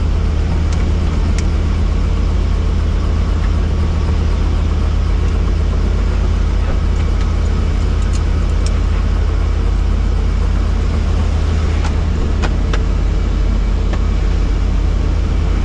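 Helicopter cabin noise: a loud, steady low drone of engine and rotor that does not change, with a few faint clicks.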